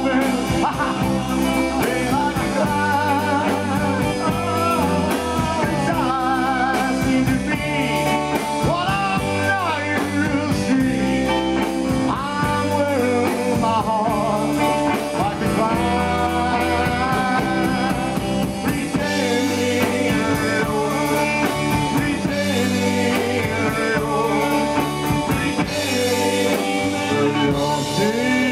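Live rock and roll band playing: electric guitars, bass guitar and drum kit at a steady beat.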